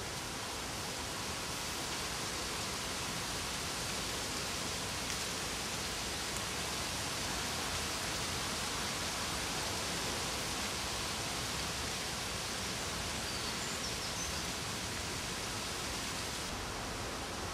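Steady, even rushing outdoor background noise with no distinct events.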